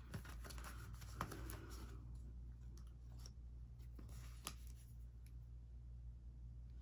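Faint scattered clicks and small taps of makeup items being handled, over a low steady hum.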